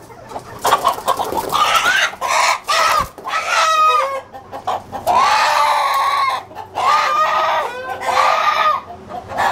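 A country (nati) rooster squawking loudly over and over as it is grabbed from its cage and held, with wings flapping between the calls.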